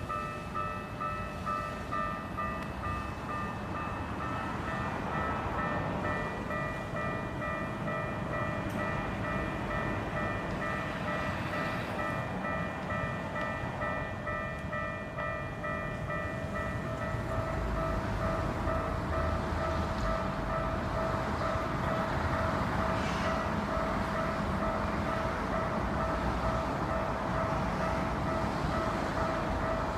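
Japanese railroad crossing alarm ringing its rapid, repeating electronic "kan-kan" ding. From about two-thirds of the way in, a louder rushing noise builds beneath it.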